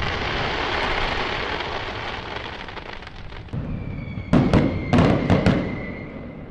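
Fireworks: the crackling tail of a burst fades over the first few seconds, then a steady whistle sounds and several sharp bangs go off in quick succession about four to five seconds in.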